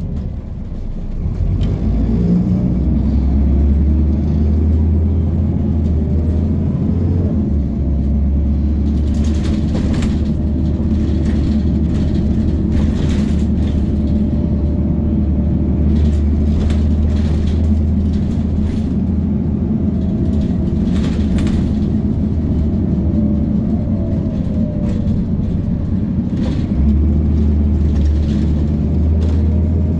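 Bredamenarinibus M240LS city bus heard from inside the passenger cabin: the engine's low drone builds as the bus gathers speed, then runs steadily, with a changing whine and a step up in engine note near the end. Scattered rattles and knocks from the bus body mix in over the middle stretch.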